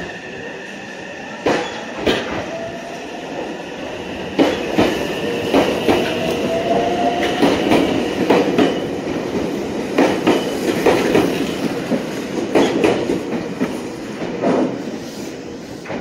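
Meitetsu electric train running along the platform: its wheels click irregularly over rail joints, densest and loudest in the middle, under a steady high squeal and a faint rising whine.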